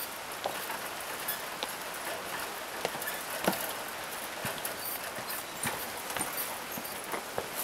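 Footsteps knocking on the wooden plank deck of a cable suspension bridge, irregular hollow knocks as two people walk across, the loudest about halfway through. A steady rush of the river below runs underneath.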